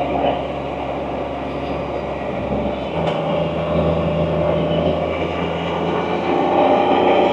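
Can-Am Spyder three-wheeled motorcycle's engine running at road speed, with wind and road noise. The engine note shifts about three seconds in and grows louder near the end.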